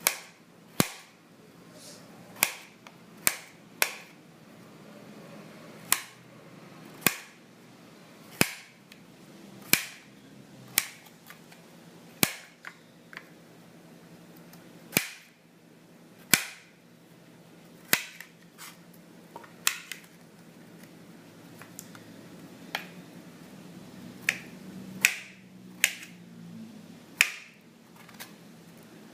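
Kitchen knife chopping potatoes: a sharp knock with each cut, coming irregularly about every one to two seconds.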